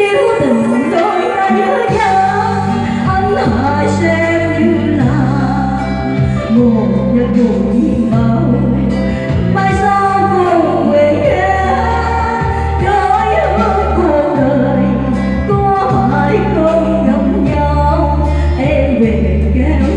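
Music of a slow Vietnamese ballad: a gliding lead melody over long, steady bass notes.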